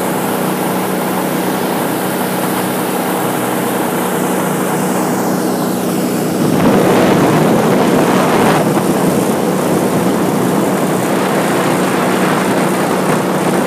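23 hp Copperhead mud motor running steadily at speed, pushing the boat across the water with wash and wind noise. About six and a half seconds in it gets louder and rougher.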